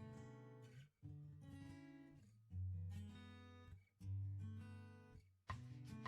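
Quiet background acoustic guitar music: plucked notes and chords, each fading before the next phrase starts about every second and a half.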